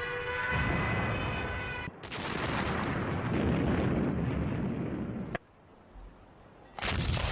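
A train whistle sounding and dying away, then a sudden loud blast of battlefield gunfire and explosions about two seconds in that rumbles on and cuts off abruptly, with another sharp burst of fire near the end.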